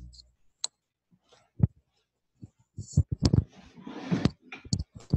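Handling noise: scattered clicks and knocks, with a brief rustle about four seconds in.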